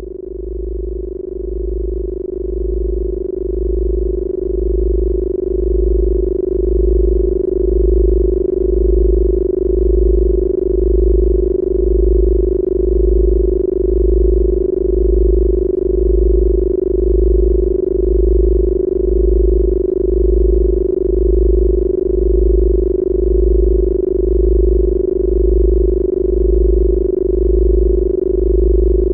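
Synthesized 'Rife frequency' drone: one steady electronic tone with a deep bass tone pulsing about once a second beneath it. It swells in over the first few seconds, then holds even.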